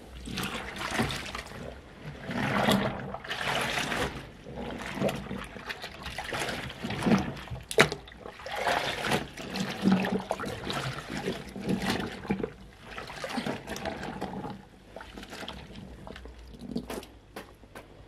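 Water sloshing and splashing irregularly as clothes are pushed and squeezed by hand into the sudsy wash water of a twin-tub washing machine's wash tub. There is one sharp knock near the middle.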